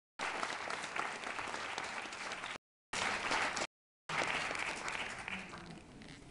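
Audience applauding, the clapping dying away over the last second or so. The sound drops out completely twice for a moment.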